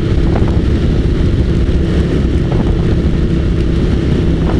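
Suzuki SV1000S's V-twin engine running at a steady cruising speed. It holds one even note with no revving or gear changes.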